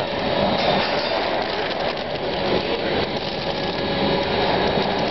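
Belt-type nut roasting machine running: a steady mechanical clatter from its wire-mesh conveyor belt and drive, over a faint steady hum.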